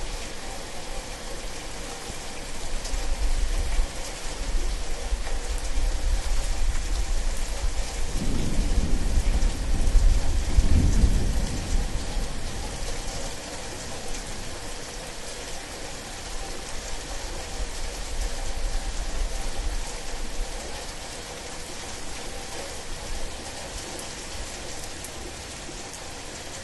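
Thunderstorm: steady rain hissing throughout, with a long low thunder rumble that builds a few seconds in, is loudest around ten seconds in, then slowly dies away.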